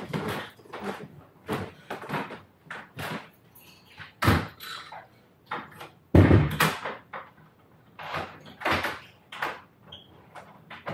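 A wooden room door being swung and pulled shut, amid irregular knocks, clunks and footsteps on old wooden floorboards. The loudest thuds come about four and six seconds in.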